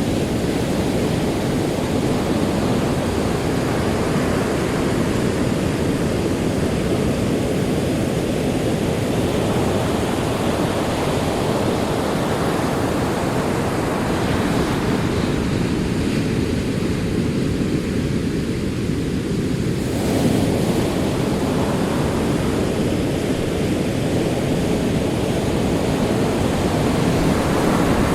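Ocean waves rolling in and washing onto a shore: a continuous rushing that swells and eases slowly, with a fresh surge about two-thirds of the way through.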